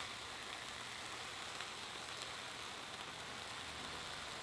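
Food sizzling on a grill: a steady soft hiss with faint scattered crackles.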